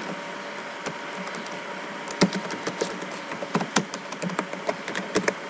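Typing on a computer keyboard: a run of irregular key clicks that starts about two seconds in, over a faint steady hum.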